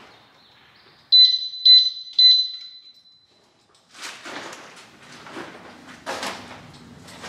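Three loud electronic alarm chirps about half a second apart on one high pitch, fading out by the middle. After them comes irregular rustling of a fabric motorcycle cover being pulled off the bike.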